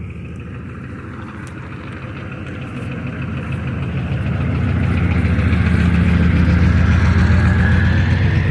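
Zero-turn mower engine running, growing louder from about three seconds in and then holding steady.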